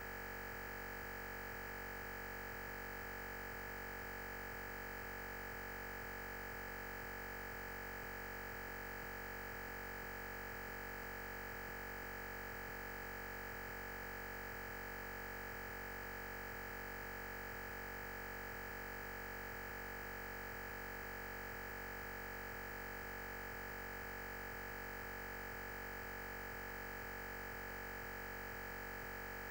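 Steady electronic hiss with a faint high, constant whine, unchanging throughout: the noise of the recording's audio chain with no speech on it.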